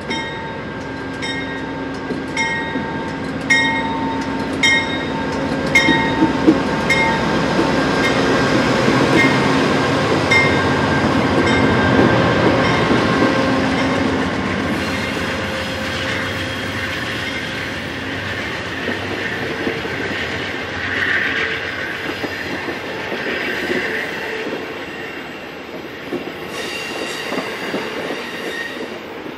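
Amtrak GE P42DC diesel locomotive and its passenger cars passing: engine hum and wheel-on-rail noise swell as the locomotive goes by, with a bell ringing about once a second for the first several seconds. In the second half the cars' wheels squeal on the curve.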